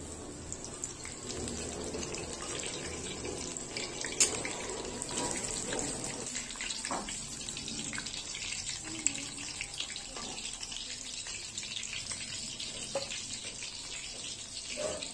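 Batter-coated batata vadas sizzling and crackling as they deep-fry in hot oil in a kadhai, with a metal spatula scraping and tapping the pan. A sharp click about four seconds in, and another near nine seconds.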